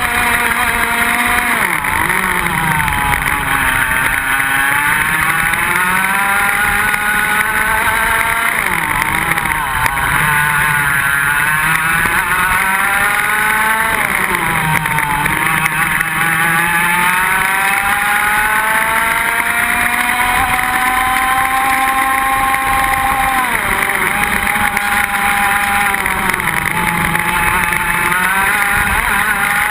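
IAME X30 125cc two-stroke kart engine at racing pace, heard onboard. The pitch climbs steadily along the straights and drops sharply into the corners, with the longest climb ending about 23 seconds in.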